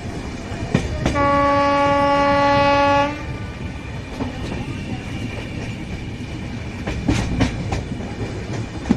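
A locomotive horn sounds one steady two-second blast over the continuous rumble of a train on the rails, with sharp wheel clacks over rail joints before it and again near the end.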